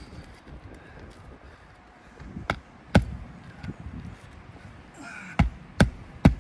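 Hammer striking roofing nails into an asphalt shingle: sharp, separate blows, two around the middle, then a quicker run of about three a second near the end.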